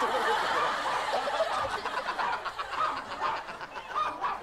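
Small dogs yapping and barking together in quick, overlapping yelps.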